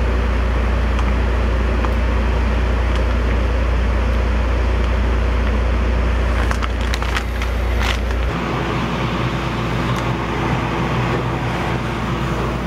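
Steady machine drone with rushing air from the powder coating equipment. A few short crackles, likely the plastic powder bag being handled, come about seven seconds in. About eight seconds in the drone changes to a different steady hum.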